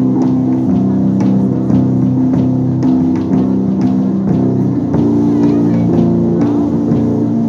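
Live rock band playing an instrumental passage: electric guitars holding sustained notes over drum-kit hits, with no singing.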